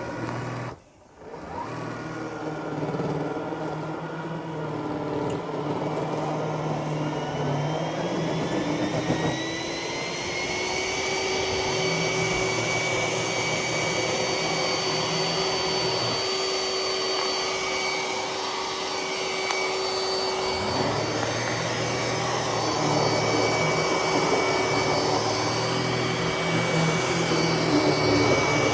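iRobot Roomba s9+ robot vacuum running. After a brief drop about a second in, its motor whine rises in pitch over about five seconds, then holds at a steady pitch.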